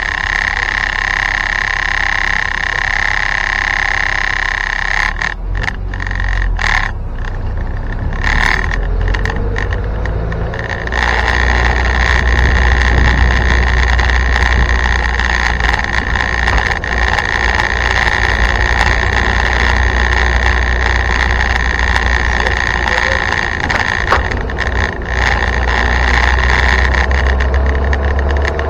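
1961 Land Rover Series 2 109-inch station wagon driving, heard from inside the cabin: engine and road noise under a constant loud rattle. The sound thins and breaks up for several seconds partway through, then returns with a heavier low rumble.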